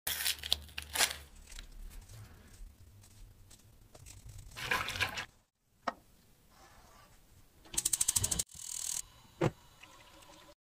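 A paper sachet crinkling as its contents are shaken into a pot of milk, then a whisk stirring the liquid in the pot. Near the end comes a quick run of whisk strokes, followed by a single knock.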